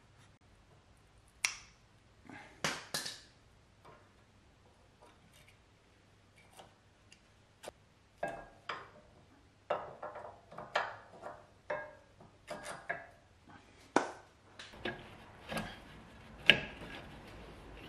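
Brake pads and caliper being fitted by hand to a car's disc brake: irregular metal clicks and knocks, sparse at first and coming thick and fast in the second half, with the loudest knock near the end.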